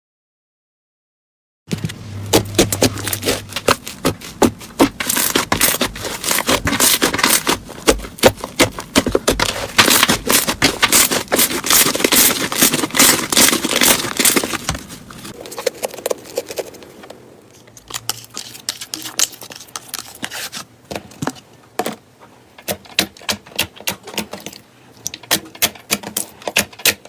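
Slime being kneaded and pressed by hand, making a dense run of sticky clicks and pops that starts after a second or two of silence and thins to sparser clicks about halfway through.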